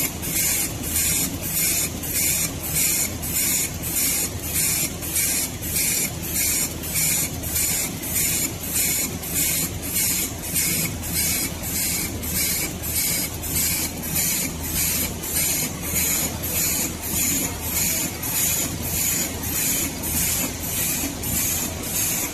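Automatic cutlery feeding and flow-pack wrapping machine running, with a regular hissing beat about twice a second over a steady mechanical hum.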